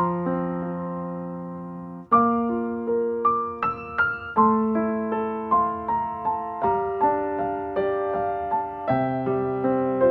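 Background piano music: a slow, gentle melody of struck notes that each fade away, over held chords.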